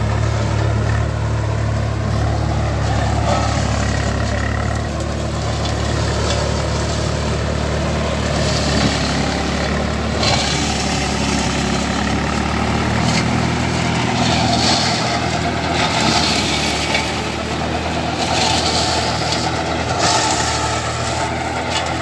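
Tractor diesel engine running steadily while driving a tractor-operated mobile shredder through standing plants, with bursts of shredding noise from the cutting rotor from about eight seconds in.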